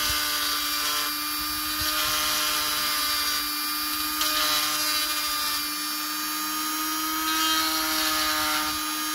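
Handheld rotary tool running at a steady high speed, its small bit grinding into the reindeer antler tip of a knife sheath; a steady whine.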